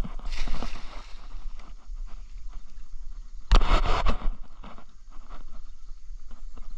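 A cast net with its lead weights landing on the river with a brief spattering splash about half a second in. About three and a half seconds in comes a louder clatter of knocks against the small boat.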